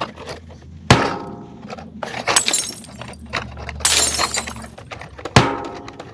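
A series of crash sound effects: a sharp hit with a ringing tone about a second in, two crashing, shattering bursts, and another ringing hit near the end.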